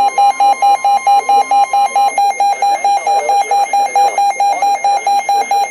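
Weather radio receiver's alert alarm beeping rapidly, about seven beeps a second, set off by an incoming warning. For the first two seconds the steady warning alarm tone of about 1 kHz from the broadcast sounds faintly beneath it, then stops.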